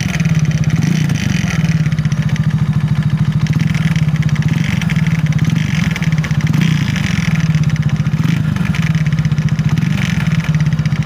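250Z motorcycle's single-cylinder four-stroke engine running at a steady idle with an odd internal noise, which the mechanic traces to something scraping inside the engine: a loose 'copa' (cup) that should be fixed tight, shedding metal shavings into the oil screen.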